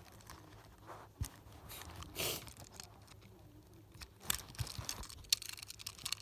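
Faint handling noises from a die-cast toy car and its packaging being turned over in the hands: a few scattered small clicks and one brief rustle about two seconds in.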